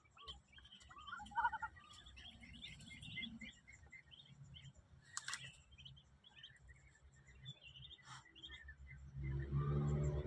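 Newly hatched Muscovy ducklings peeping in many short, high chirps, faint throughout, with two sharp clicks along the way. Near the end a low steady motor hum comes in.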